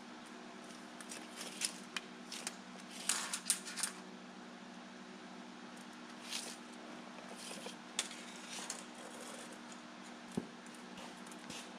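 Handling sounds of measuring and marking out on the steel door skin: scattered tape measure clicks and short scratchy scrapes, most of them about three to four seconds in, over a steady low hum.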